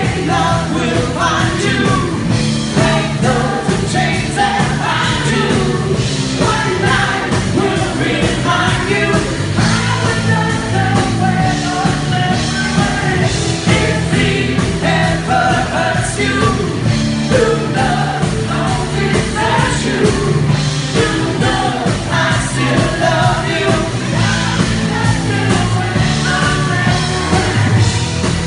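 Live rock band playing loud: a male singer over electric guitar with a steady beat.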